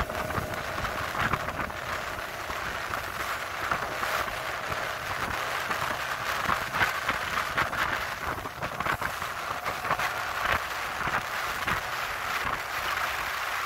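Small motorboat running across a lake: engine noise under heavy wind buffeting on the microphone, with many short irregular knocks throughout.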